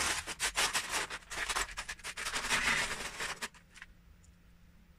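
Loose Lego bricks rattling as a hand rummages through a pile of them in a plastic storage tub, a dense run of small plastic clicks that stops about three and a half seconds in, followed by a few single clicks.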